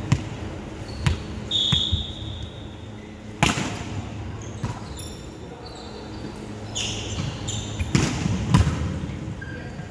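Volleyball being played on a wooden hall court: about six sharp slaps of the ball, loudest a little over three seconds in and near the end, with short sneaker squeaks on the floor.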